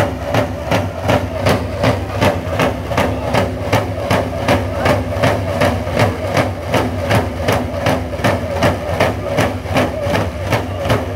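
Row of Dene hand game drummers beating large hide frame drums in a steady, even beat of about three strikes a second. Their group chanting rides over the drums, accompanying the hiding team during play.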